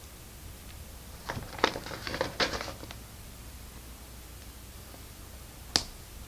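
LEGO pieces being handled and pressed together: a quick cluster of clicks and rattling from about one and a half seconds in, then a single sharp click near the end.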